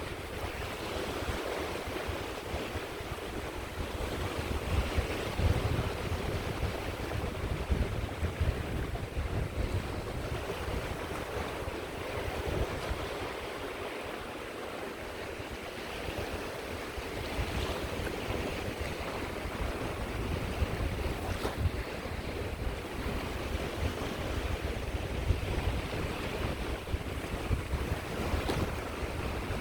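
Sea waves breaking and washing on the shore, with a low rumble of wind on the microphone. The surf eases off briefly about halfway through, then builds again.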